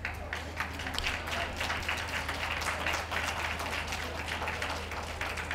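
Ringside audience applauding, a dense patter of many people clapping.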